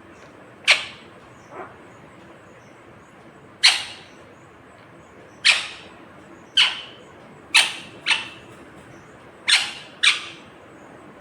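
Pet rose-ringed (Indian ringneck) parakeet giving short, sharp screeching calls, about eight in all, each starting suddenly and dropping quickly in pitch, several in quick pairs.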